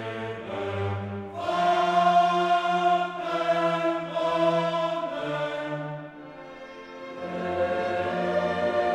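Background music: a choir singing long held notes with orchestral accompaniment.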